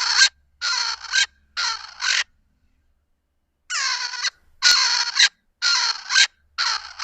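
Swainson's spurfowl crowing: loud, harsh, rasping notes in two series of about four, with a short pause between the series.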